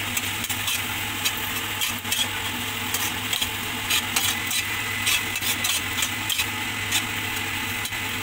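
A metal spatula stirring scrambled egg and onion in a hot kadai, with irregular scraping clinks against the pan over a steady sizzle of frying, and a low hum underneath.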